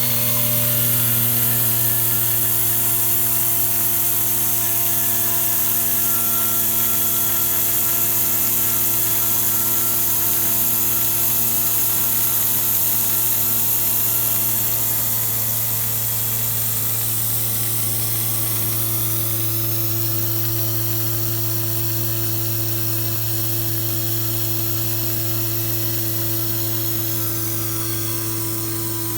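Tormach 770 CNC mill running steadily as it machines metal bar stock: a continuous machine whine made of several steady tones over a high hiss. The upper tones rise in pitch about two-thirds of the way through and fall back near the end.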